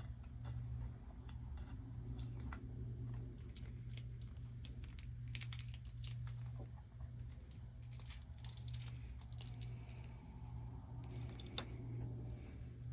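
Scotch tape being peeled off: a run of small, irregular crackles and ticks over a steady low hum.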